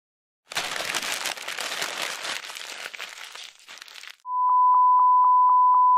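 Edited-in sound effects: a burst of crackling static that fades away over about three and a half seconds, then a steady single-pitch electronic beep held for about two seconds.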